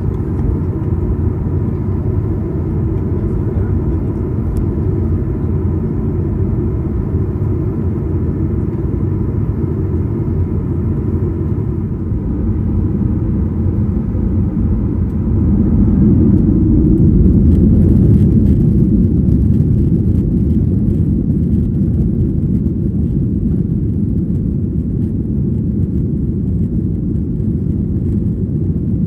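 Boeing 737-800 heard from inside the cabin while it taxis on the runway: a steady low rumble of engines and rolling gear. It swells for a few seconds about halfway through, then settles back.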